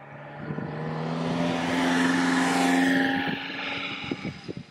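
A white kei van driving past: its engine note and tyre noise build to a peak about two to three seconds in, then fade as it moves away, with a few light ticks near the end.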